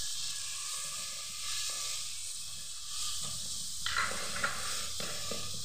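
Vinegar hitting hot oil and chilli-turmeric masala in a clay pot, sizzling and hissing steadily as it steams, with a wooden spoon stirring and scraping the pot about four seconds in.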